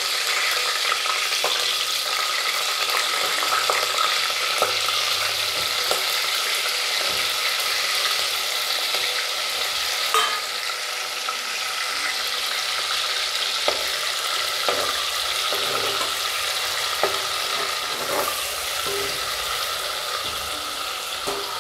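Paneer cubes sizzling steadily as they deep-fry in hot oil in an aluminium pressure cooker. A few light clicks of a metal slotted spoon against the pot come in the second half as the cubes are stirred.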